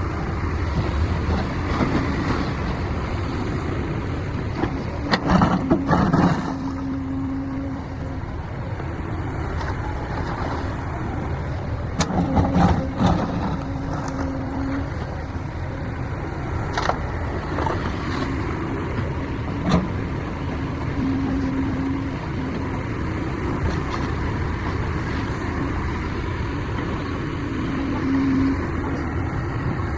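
Heavy machine's engine running steadily, with several sharp knocks and clanks at intervals and brief steady whines in between.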